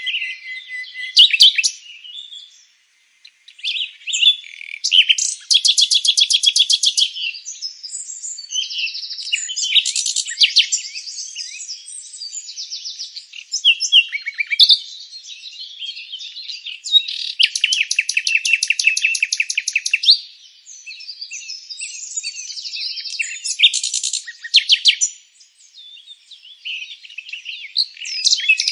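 Several songbirds singing and chirping over one another, with fast trills of two to three seconds about a quarter of the way in, again past the middle, and starting at the very end, between shorter chirps and warbled phrases.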